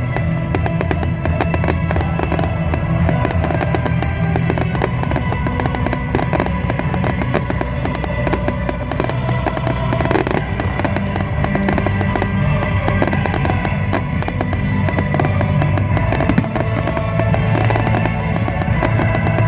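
A fireworks display going off, with many rapid bangs and crackles one after another. Loud music plays throughout.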